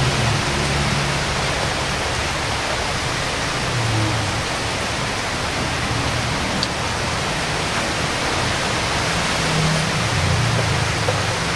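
Steady rain falling: an even, unbroken hiss of noise.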